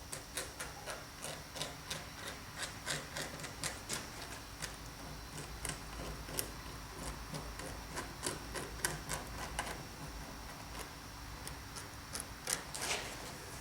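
A small stick tapping and scraping in quick, irregular clicks as it spreads water effects gel over a model waterfall, with a longer, louder scrape near the end.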